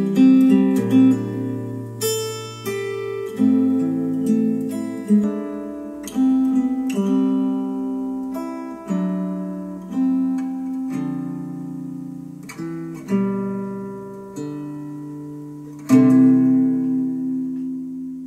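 Acoustic guitar music played back through bookshelf speakers in a speaker comparison: chords strummed and plucked about every second or two, each ringing and fading. A last chord near the end is left to ring out.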